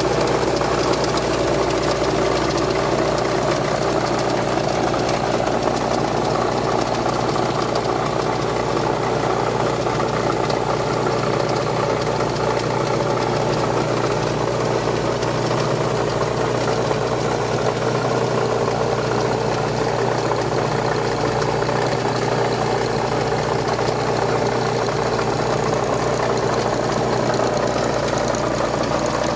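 Audi RS4 engine idling steadily with a rattle ("Klappern").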